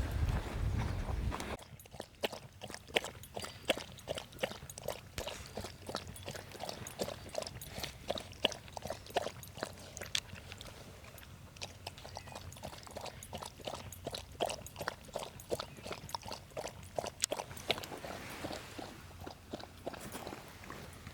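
Footsteps crunching on a dirt and gravel trail at a walking pace, a few steps a second. In the first second and a half there is a low rumble of wind on the microphone.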